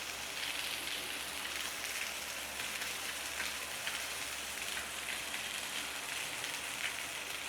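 Salmon fillets frying in a little hot oil in a pan: a steady sizzle with fine crackles as one side browns.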